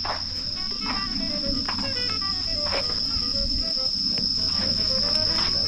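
Insects trilling steadily at one high pitch, with soft background music of short plucked notes stepping up and down.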